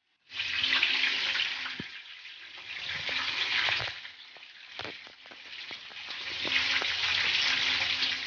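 Water boiling hard in a steamer: a steady hiss of steam with scattered sputtering crackles. It eases off in the middle and swells again.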